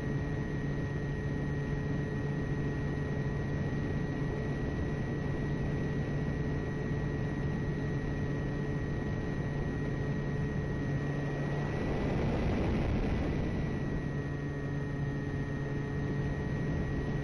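Multiplex Twinstar RC plane's electric motors whining steadily, recorded onboard in flight, with air rushing past the camera. About twelve seconds in, the rush of air swells for a couple of seconds and the low hum drops out, then the steady whine returns.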